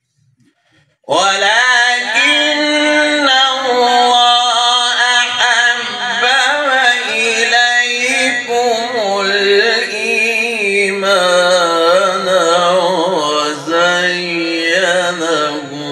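A male qari reciting the Quran in a melodic, ornamented chanting style (tajwid tilawat), the voice coming in about a second in after a pause and holding long, wavering phrases.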